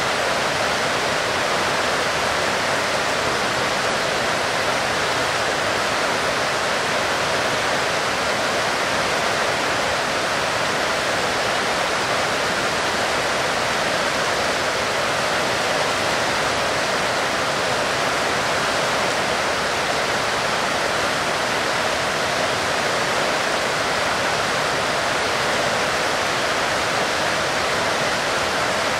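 Heavy rain falling steadily: a dense, even hiss with no separate drops, gusts or thunder standing out.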